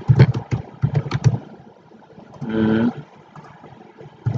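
Computer keyboard typing: a quick run of keystrokes in the first second and a half, entering an email address. A short hummed vocal sound comes near the middle, and a few fainter clicks near the end.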